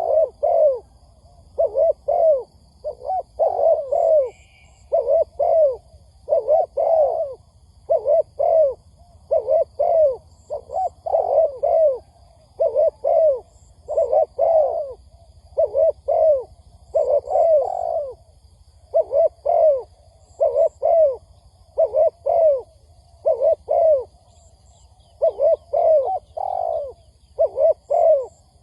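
Spotted dove cooing hard and without pause: short falling coos in quick pairs and triplets, about one phrase a second. It is the urgent cooing of a decoy dove, used to lure wild doves.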